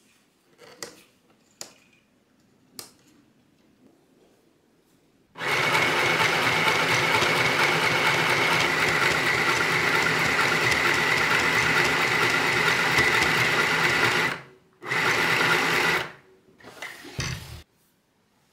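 Easymaxx compact sewing machine running steadily as it stitches through t-shirt fabric, after a few soft clicks of handling. It stops briefly near the end, then runs again for about a second.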